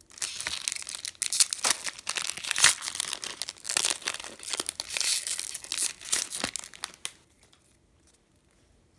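Foil wrapper of a Yu-Gi-Oh! trading-card booster pack being crinkled and torn open, a dense run of crackles lasting about seven seconds before it stops.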